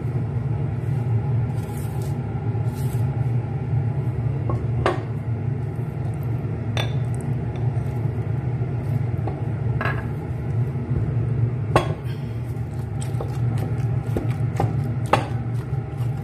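Kitchen clatter: dishes and utensils clinking now and then, more often in the last few seconds, over a steady low hum.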